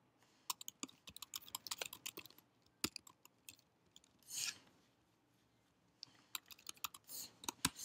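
Typing on a computer keyboard: quick runs of key clicks in the first two and a half seconds and again in the last two seconds, with a few single key presses and a brief soft noise between them.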